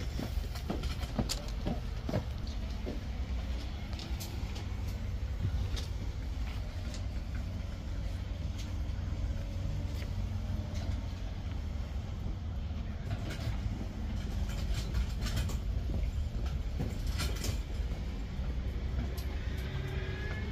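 A steady low rumble with scattered light clicks and knocks, as the pallbearers walk the casket in and set it down.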